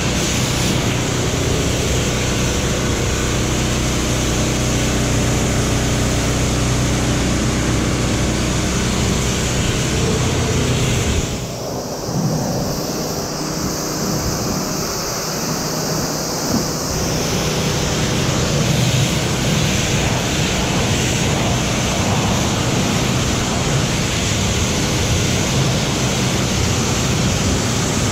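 Pressure washer wand firing a high-pressure jet of water against the truck's body and underlift, rinsing off soap: a steady hiss of spray that thins for a few seconds near the middle.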